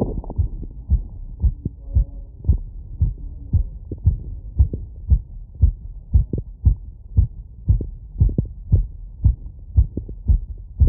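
Fast human heartbeat heard through a wireless electronic stethoscope on the chest, a rapid, even run of low thumps about twice a second. It is a heart rate raised by a 3 km run.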